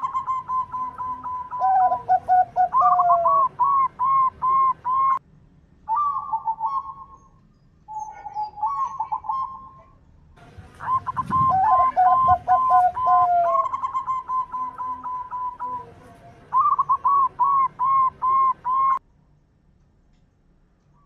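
Zebra doves cooing: fast runs of short, clear, bouncing notes, with a second voice of lower, falling notes overlapping at times. The song breaks off in a few places and stops about two seconds before the end.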